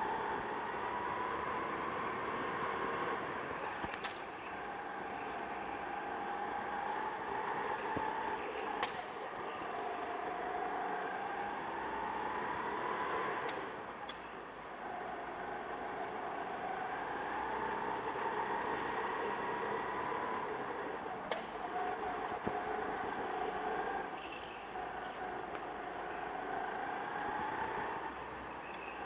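Go-kart motor heard onboard while lapping: its pitch climbs along each straight, then drops as the kart slows for a corner, over and over. A few sharp knocks cut through, each on its own.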